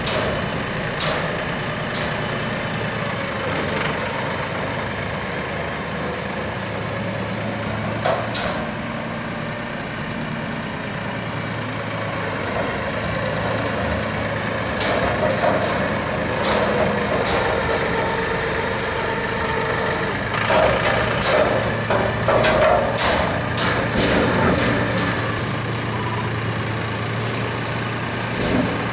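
Tractor engine running steadily, with scattered clanks and knocks and a drawn-out squeal about halfway through.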